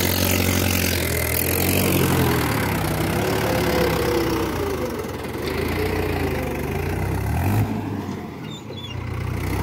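Mahindra 575 DI XP Plus tractor's diesel engine running under load as it pulls a spring-tine cultivator through the soil. Its pitch wavers up and down, and it briefly drops off near the end.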